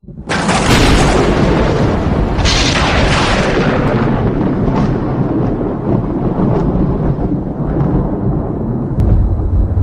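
Designed intro sound effects: a long explosion-like rumble that sets in suddenly, with two bright hissing surges in the first few seconds, then slowly thins out while the low rumble carries on.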